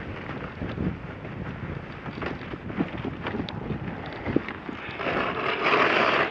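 Wind buffeting the microphone, a rough steady rush with scattered small knocks. A louder hiss comes in about five seconds in.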